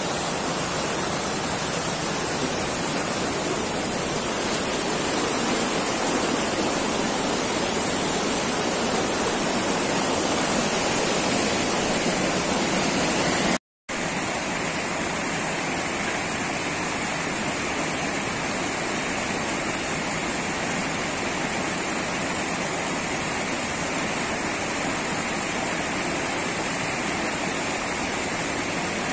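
Steady rush of river rapids pouring down rocky cascades, loud and unbroken apart from a brief dropout about halfway through.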